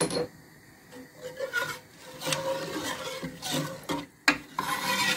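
Metal ladle stirring thin gram-flour curry in a pressure cooker pot: liquid sloshing and the ladle scraping the pot, with sharp knocks of ladle on metal at the start and again about four seconds in.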